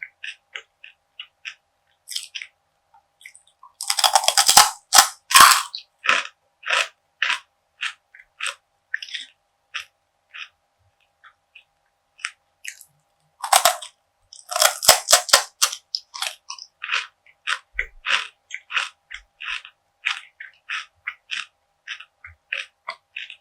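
Biting and chewing crunchy perilla seed gangjeong (seed brittle): two bouts of loud crackling bites, about four and about thirteen seconds in, with a run of short crisp chewing crunches between and after.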